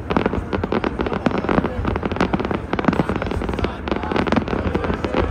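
Fireworks and firecrackers going off close together: a dense, unbroken run of bangs and crackles.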